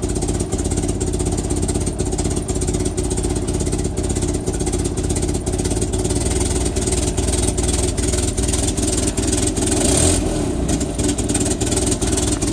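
1961 Land Rover Series II four-cylinder petrol engine idling steadily through its newly fitted muffler while still warming up, not yet idling smoothly. It briefly swells about ten seconds in. The exhaust leak where the downpipe meets the manifold is audible, and the owner calls it pretty bad.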